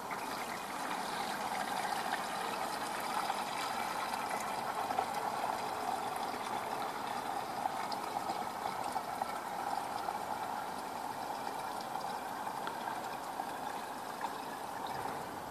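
Water pouring steadily from a plastic watering can's spout into a plastic garden sprayer's tank, filling it.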